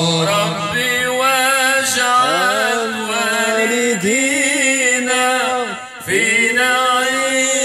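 A man sings an unaccompanied mawwal of Moroccan Sufi praise song (amdah) into a microphone. His voice slides and ornaments long drawn-out notes, with a short break for breath a little before six seconds in.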